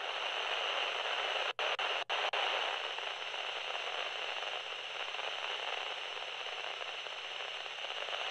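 Steady hiss of radio static, like an untuned receiver, with two brief dropouts about one and a half to two seconds in.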